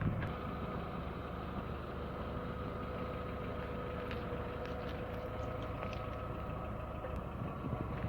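Car engine idling steadily, with a constant hum.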